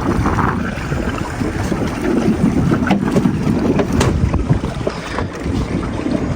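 Wind noise rumbling on the microphone aboard a small fishing boat on open water, with a couple of sharp clicks about three and four seconds in.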